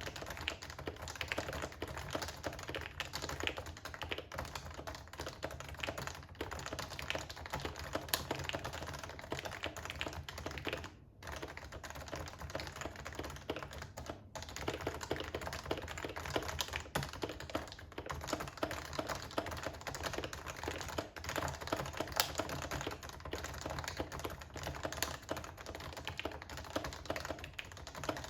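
Continuous fast typing on an HHKB Pro 2 keyboard with stock Topre electrostatic capacitive switches (original rubber domes and sliders), stock keycaps and lubed stabilizers: a steady stream of key presses, with a brief pause about eleven seconds in and another about three seconds later.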